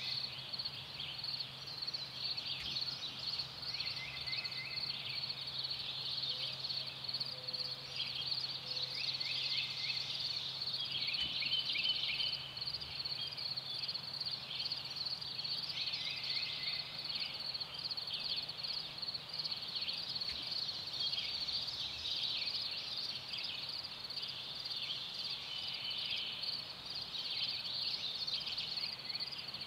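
Field ambience: a steady, high-pitched pulsing chorus of calling insects or frogs, with birds singing short falling phrases over it every few seconds. A low steady hum runs underneath and stops about two-thirds of the way in.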